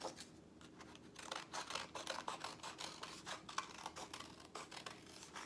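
Scissors snipping through a folded sheet of paper: a quiet run of short, irregular snips.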